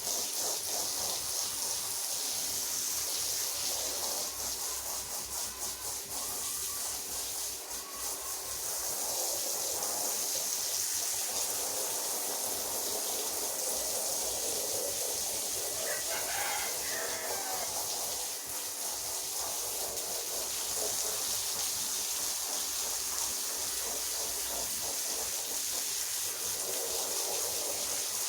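Rotary floor polisher running with its brush scrubbing a wet carpet: a steady motor hum under a constant hissing swish.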